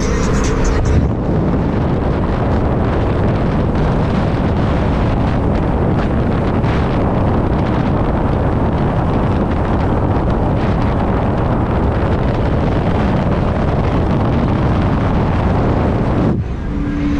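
Steady wind and road noise of a moving car, with wind rushing over the microphone. The noise starts abruptly about a second in and cuts off shortly before the end.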